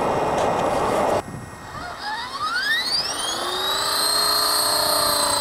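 Single-bladed Blade 400 electric RC helicopter spooling up: the brushless motor and speed-controller whine rises steeply in pitch from about two seconds in, then levels off into a steady high scream. Before it, a rushing noise cuts off abruptly about a second in.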